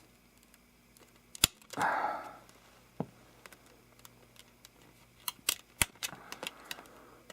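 Plastic Blu-ray case and its contents being handled: a few sharp plastic clicks and snaps, the loudest three close together near the end, with brief rustling about two seconds in and again just after the clicks.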